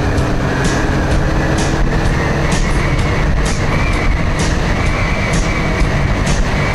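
Honda CB650R motorcycle under way at a steady speed: loud, steady wind and road rumble over the engine, with a light tick about once a second.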